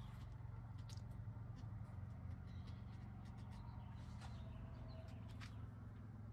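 Faint outdoor background: a steady low hum with a few faint, high, short chirps and light clicks, one chirp rising near the end.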